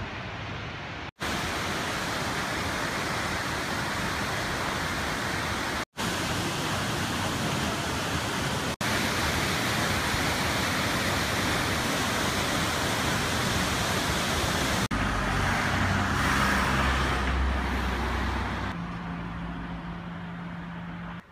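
Jōren Falls' waterfall pouring down with a steady, loud roar of falling water, broken by a few brief dropouts. Near the end it gives way to street traffic: a low rumble, then a steady low engine hum.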